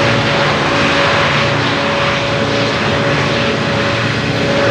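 Three EMD 16-710G3A-engined 90 class diesel locomotives working hard under load up a grade, a steady loud engine drone with a held whine over it, as loaded coal hopper wagons roll past.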